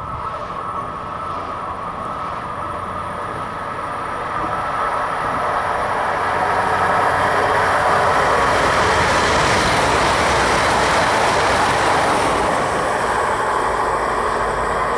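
Siemens Desiro electric multiple unit (OSE class 460) approaching out of a tunnel and passing, its wheels running on the rails. The rush of noise builds for a few seconds, is loudest about halfway through, and eases a little near the end.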